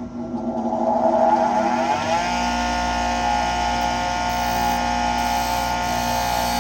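Bench grinder switched on, its motor spinning up with a rising whine for about two seconds, then running steadily at full speed.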